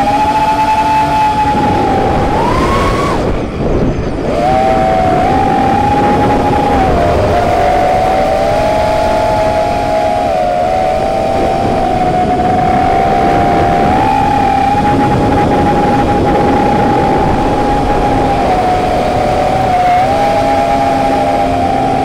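A 5-inch FPV quadcopter's four brushless motors (T-Motor F40 II 2400kv on DAL 5060 props) whining at several close pitches that shift together with throttle, over wind rush on the onboard camera. The whine rises about two seconds in, cuts out briefly around three to four seconds in, then comes back and holds.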